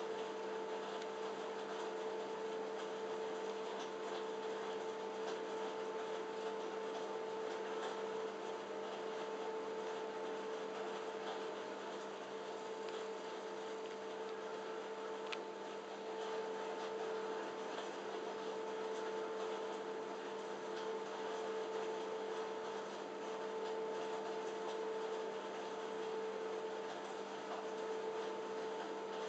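Steady machine hum: a constant drone with a few fixed tones over a hiss, unchanging throughout.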